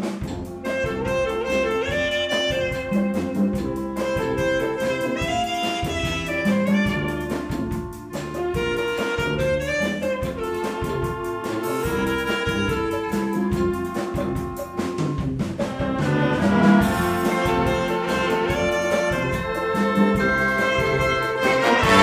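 Symphonic wind band playing a medley live: clarinets, saxophones and brass carry the tune over double bass, without pause.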